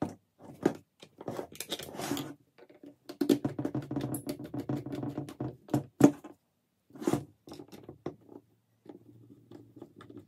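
Hand screwdriver turning screws into the plastic housing of a Makita 6317D cordless drill: rapid clicking and scraping in two longer stretches, with a few sharp knocks as the drill body is handled.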